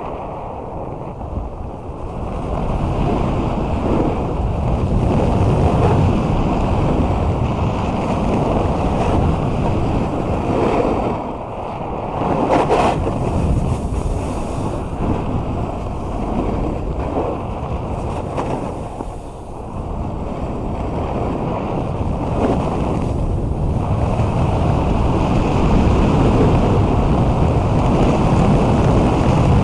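Wind rushing over an action camera's microphone during a snowboard run, mixed with the board sliding and scraping over packed snow. It gets louder about two seconds in as speed builds, with a brief harsher scrape about twelve seconds in.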